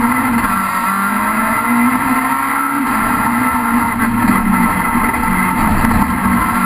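Rallycross car's engine running hard, heard from inside the cockpit. Its pitch climbs, drops about three seconds in at a gear change, and climbs again.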